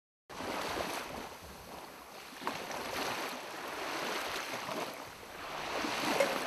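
Ocean surf: waves washing in and drawing back, a rushing hiss that swells and ebbs every couple of seconds and starts abruptly just after the beginning.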